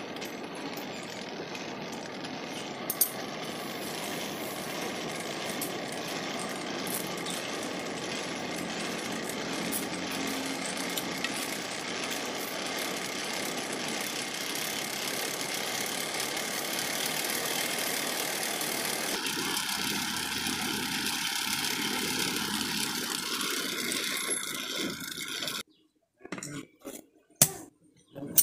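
Forge air blower running steadily, with a faint whine in its rush of air, feeding the charcoal fire while the blade heats. It cuts off suddenly near the end, followed by a few sharp knocks and clinks of steel on the anvil.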